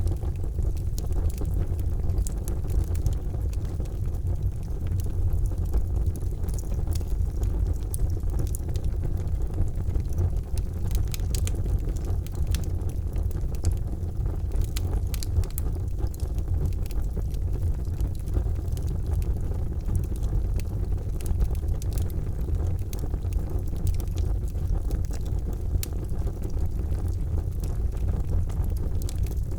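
Charcoal fire burning in a fireplace: a steady low rumble with frequent sharp crackles and pops.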